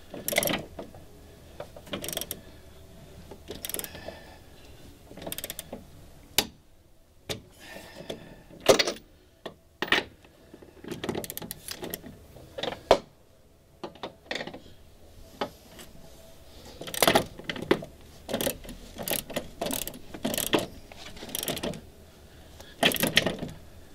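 Ratcheting torque wrench tightening the stainless nylock nuts on outboard mounting bolts to 35 foot-pounds: short spells of ratchet clicking with pauses between strokes.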